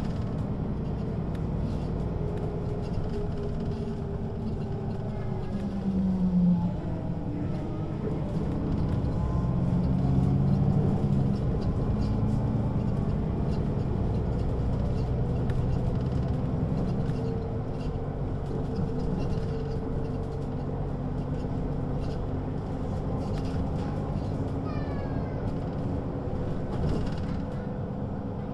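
Mercedes-Benz O 530 G Citaro G articulated bus running under way, its engine and ZF gearbox humming. The engine note rises and shifts in pitch as the bus accelerates and changes gear, and is loudest about ten seconds in.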